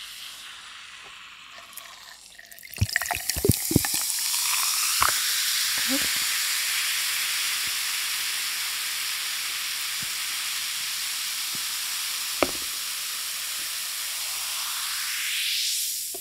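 Coca-Cola poured from a can over ice into a glass mug. A cluster of clicks and splashes comes as the pour starts, then a steady fizzing hiss from the carbonation that dies away at the end.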